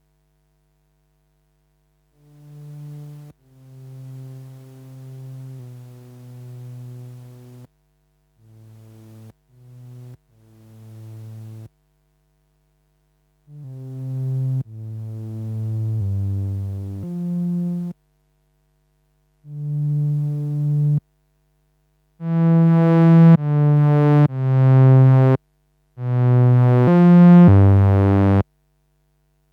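Korg MS-20 mini analog synthesizer playing a series of separate low, buzzy bass notes with short gaps between them. The notes get louder and brighter about two-thirds of the way through.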